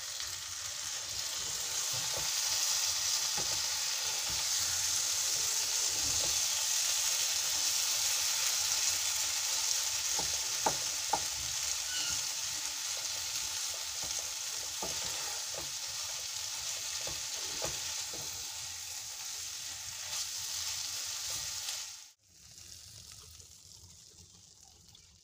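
Okra masala sizzling and frying in a nonstick kadai as it is stirred with a wooden spatula, which scrapes and taps against the pan now and then. About 22 seconds in the sizzle cuts off abruptly, leaving a fainter hiss.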